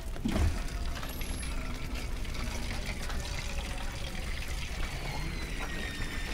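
A steady stream of urine trickling into a metal basin.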